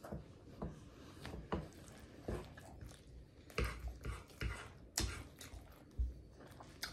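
Close-up mouth sounds of a person chewing soft ramen noodles with creamy Alfredo sauce: irregular wet smacks and clicks, about one or two a second.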